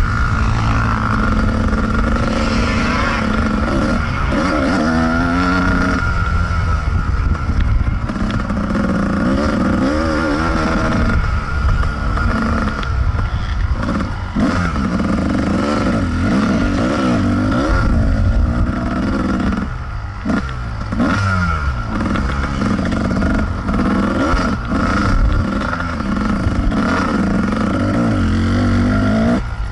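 Kawasaki KDX220 two-stroke dirt bike engine heard close up while riding, its revs constantly rising and falling as the throttle is worked and gears are changed along the trail. The engine briefly drops off about two-thirds of the way through, then picks up again.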